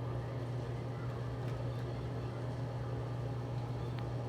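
Steady low hum with faint background noise and a small click near the end.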